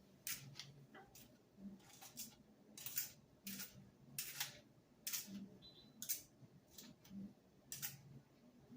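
Hands smoothing and straightening a toy unicorn's coarse synthetic mane: about a dozen short, soft rustling strokes at an uneven pace.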